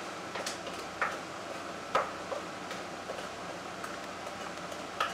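A kitchen utensil tapping and scraping against the bowl and baking pan as coffee cake batter is emptied into the pan: light, irregular clicks and knocks, with a louder knock near the end.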